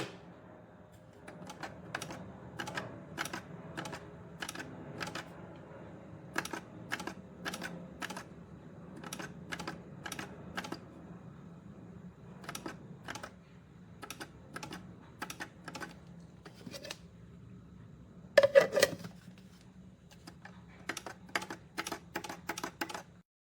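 A series of light, irregular clicks and taps, a few each second, with a louder brief clatter about three-quarters of the way through, over a faint steady hum.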